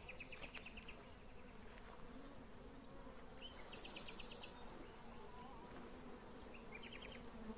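Faint steady hum of a honeybee colony buzzing over its opened hive as a brood frame is lifted out.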